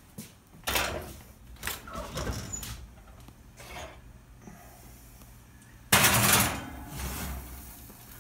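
Oven door being opened and a glass baking dish going onto the wire oven rack: a few short scrapes and knocks, then a sudden loud scraping rush about six seconds in.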